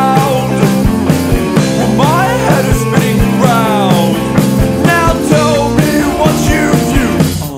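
Rock band recording playing, with guitars and a steady drum beat; the band drops out near the end.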